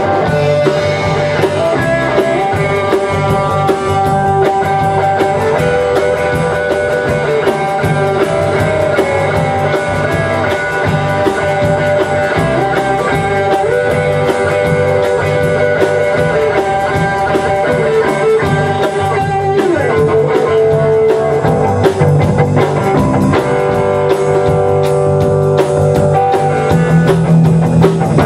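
Rock band playing live without vocals: electric guitars and a drum kit, with a guitar line stepping up and down over the rhythm.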